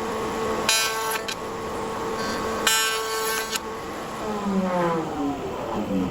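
Two short horn-like blasts, then a passing vehicle whose engine pitch falls.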